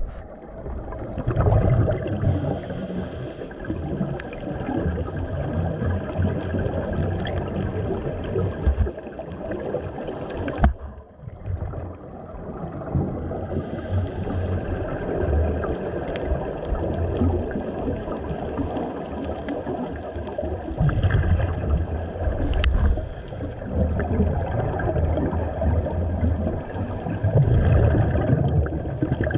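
Scuba regulator exhaust heard underwater: a diver's exhaled bubbles gurgling and rumbling in stretches of a few seconds, with weaker pauses between breaths.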